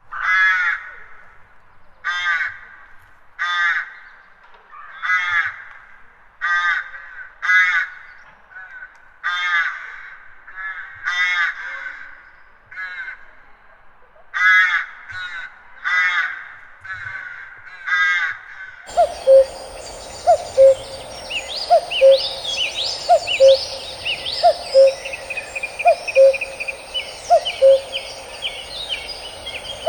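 Crows cawing, about one harsh call a second. About nineteen seconds in, this gives way to a woodland chorus: a bird repeating a low two-note hooting call every second or so, songbirds trilling higher up, and a thin steady high whine.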